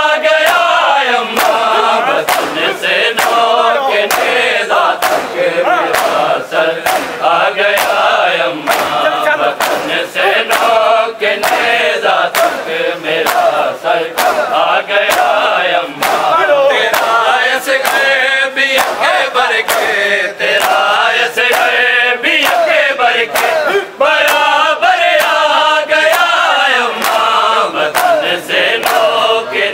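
Crowd of men chanting a noha lament in unison, with sharp slaps of hands on bare chests (matam) keeping a steady beat.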